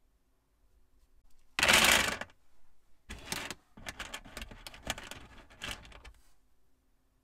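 Small plastic Plus-Plus pieces clattering onto a table in one short, loud spill, then a few seconds of rapid clicking and rattling as fingers push through the loose pieces.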